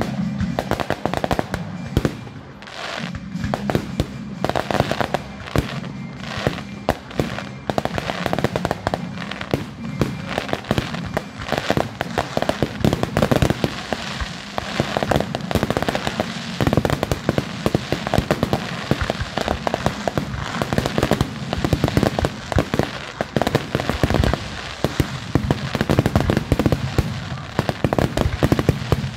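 Aerial fireworks display going off in a dense, rapid string of bangs and crackles, many shells bursting one on top of another, with no real pause.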